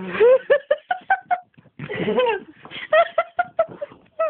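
A young man's high-pitched, breathless voice in quick short bursts, coming in three runs with brief gaps, as his eye stings from a piece of dissolvable gum strip.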